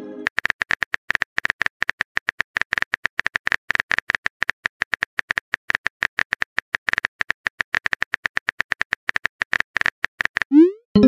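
Rapid, irregular keyboard clicks of a texting app typing out a message. Near the end comes a quick rising swoosh and a short chime as the message is sent.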